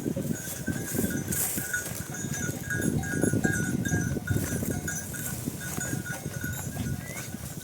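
Bells on a flock of sheep and goats clanking unevenly as the animals move.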